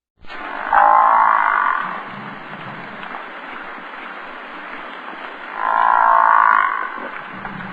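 An animal calling twice, each call about a second long, over a steady rushing background.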